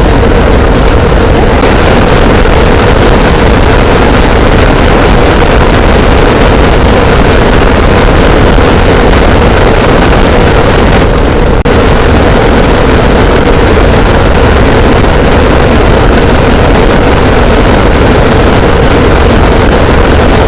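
A continuous, extremely loud, heavily distorted roar of noise pushed to full volume, with a steady hum in the middle of it. It dips briefly about halfway through.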